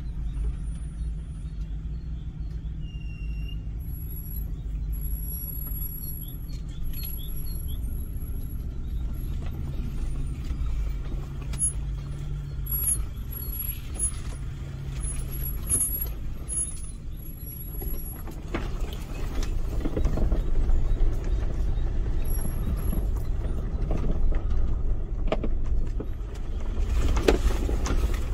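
Toyota FJ Cruiser's 4.0-litre V6 running at low speed on a rough dirt track, heard from inside the cabin as a steady low drone. Knocks and rattles from the body and suspension over the bumps grow louder from about two-thirds of the way in.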